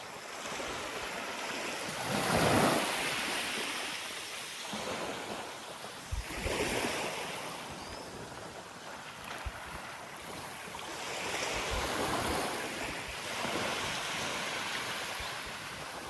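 Small waves breaking and washing up the beach, the surf swelling and fading several times, loudest about two and a half seconds in.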